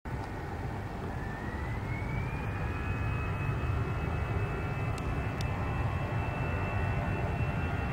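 Airbus A320-214 jet airliner's CFM56 turbofan engines spooling up for takeoff: a deep rumble with a fan whine that rises in pitch about a second in and then holds steady.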